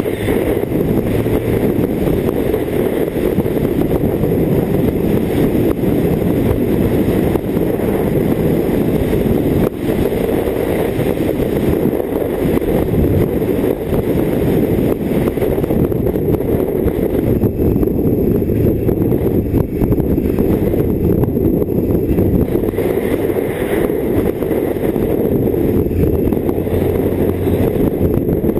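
BMW K1600GT inline-six motorcycle riding along at a steady pace, heard from on board the bike: a continuous low rush of engine and wind noise with no sharp events.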